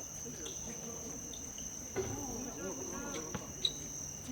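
A steady high-pitched, insect-like drone under faint distant voices. A few sharp knocks stand out, the loudest about three and a half seconds in.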